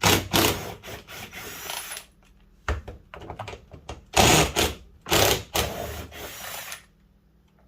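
Clattering and scraping of plastic door-trim pieces and small fasteners being handled and pried loose, in several bursts with a sharp click about three seconds in.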